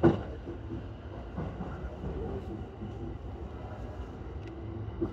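Electric commuter train running, heard from inside the driver's cab: a steady low rumble of wheels on rail, with a sharp knock right at the start and a smaller one near the end.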